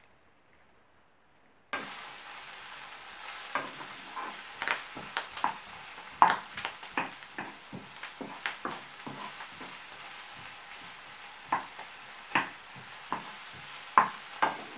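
Sliced onions sizzling in oil in a nonstick frying pan, starting suddenly about two seconds in, while a wooden spatula stirs them with frequent sharp scrapes and taps against the pan. The onions are at the start of being caramelized.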